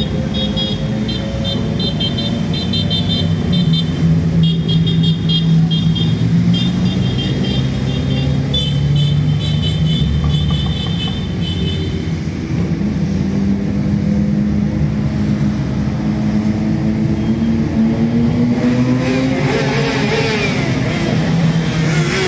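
A procession of motorcycles and scooters riding past, their engines running together, with high-pitched horns beeping in rapid bursts through the first half. Near the end, single engines rev up and down as riders pass close.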